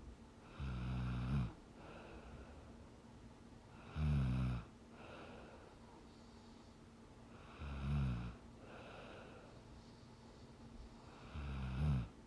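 A young woman snoring in her sleep: four loud snores at an even rhythm, one about every three and a half to four seconds, each followed by a softer breath.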